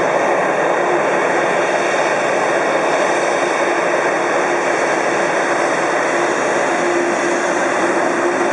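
Jet engines of a Boeing 747-8 Intercontinental (GEnx-2B) running steadily while the airliner taxis after landing: an even rushing hiss with a low hum that grows stronger near the end.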